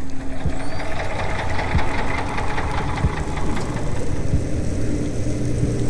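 Boat or ship engine heard underwater through a hydrophone: a steady low mechanical hum with a few held tones and a sharp knock about every second and a quarter.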